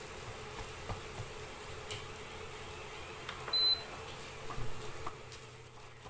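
A spatula stirring a ground-meat and rice filling in a pot, with scattered small clicks and scrapes over a steady low hum. A short, high electronic beep sounds once about three and a half seconds in.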